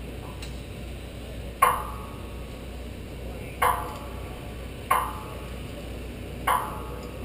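Four sharp metallic clanks at uneven intervals, each with a short ringing tail, carried through the aluminium truss tower as metal strikes it.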